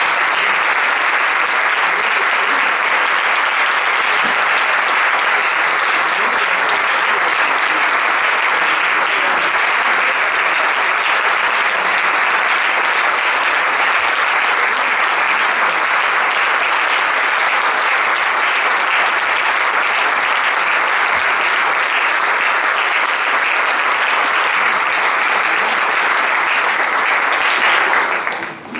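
Audience applauding steadily for nearly half a minute, then dying away just before the end.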